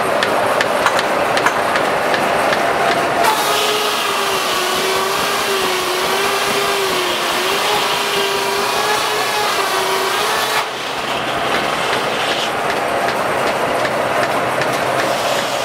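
Steam-powered sawmill running with a steady, rapid mechanical ticking. From about three seconds in, the circular saw cuts through a log for about seven seconds: a loud hiss with a whine that wavers in pitch as the load changes. The blade then runs free again.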